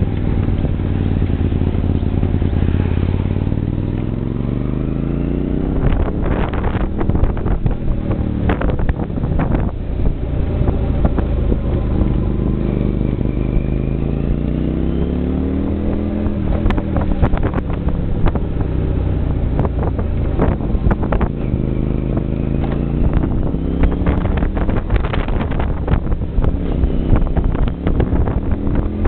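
Trike engine running under way, its revs rising twice as it accelerates and then settling, with wind buffeting the microphone in short thumps.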